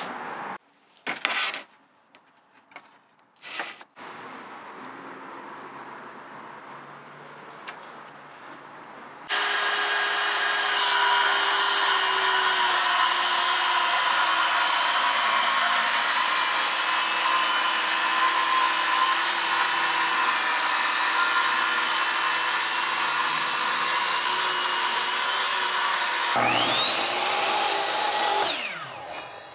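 Circular saw on a guide rail cutting through a 5/8-inch wooden tabletop. It starts abruptly about nine seconds in and runs steadily for some seventeen seconds, after a few knocks of handling. Near the end, a miter saw's motor spins up with a rising whine and winds down.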